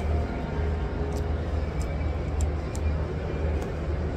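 Steady low rumble of background machinery, with a few faint, light clicks of a plastic spoon against a plastic food container.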